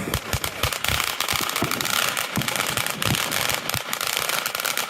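Fireworks crackling in rapid, overlapping pops, with a few low thuds mixed in.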